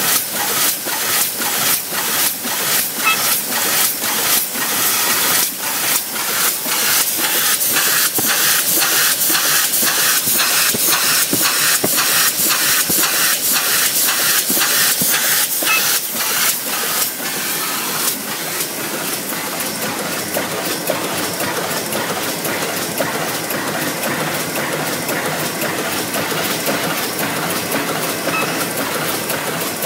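Meccanotecnica Aster 2000 automatic book-sewing machine running in production, its sewing mechanism clacking in a regular rhythm of about two to three strokes a second over a steady hiss. After about 18 s the strokes blur into a steadier, slightly quieter clatter.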